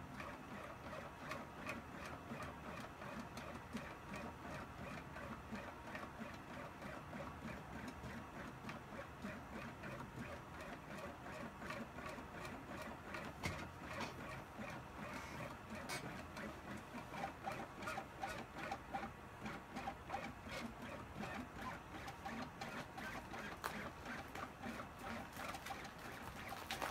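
Stepper motors of a gantry CNC machine whirring as it moves a pen along the lines of a kanji drawing on paper, the tone shifting constantly as the axes change direction, with many small clicks.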